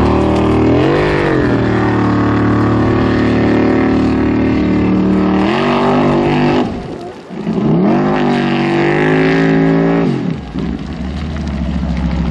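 Formula Offroad hill-climb buggy's engine at high revs under full throttle as it climbs a steep gravel slope. About seven seconds in the revs drop off briefly, then climb again, and they fall away to a lower note at about ten seconds.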